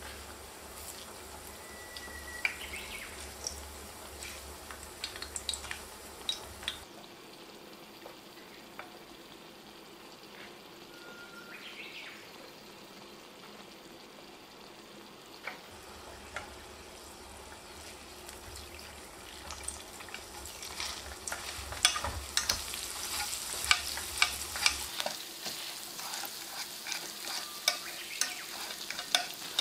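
Garlic slices frying in olive oil in an aluminium frying pan: a steady soft sizzle with scattered pops and crackles. The crackling grows louder and denser about two-thirds of the way through, and near the end liquid is poured into the hot oil.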